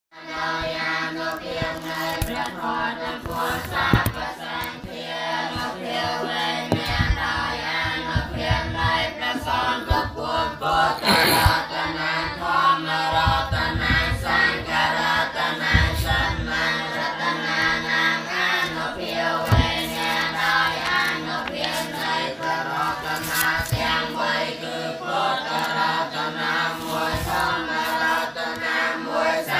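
A group of voices chanting together in a steady, sustained drone, typical of Buddhist chanting, with scattered low thumps.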